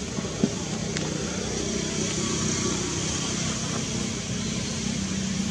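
Steady outdoor background noise: an even low hum like a running motor, under a high steady hiss, with a faint click about half a second in.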